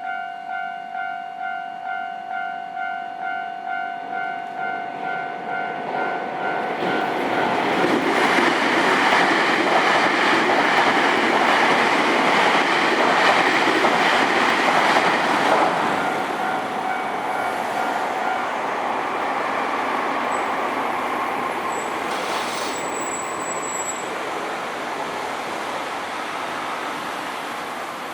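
Japanese level-crossing warning bell ringing a steady repeating ding, about one and a half strikes a second. About seven seconds in, a Nankai Main Line train passes over the crossing with loud rail noise that drowns the bell. The bell is heard again briefly, stops at about eighteen seconds, and the train noise fades, with a short high squeal near the end.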